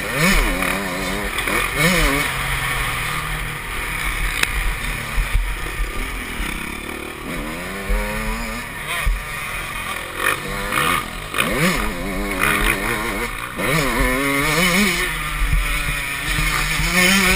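Motocross bike engine heard from on board while it is ridden round a dirt track. The engine revs up and drops back again and again with the throttle, over a low rumble.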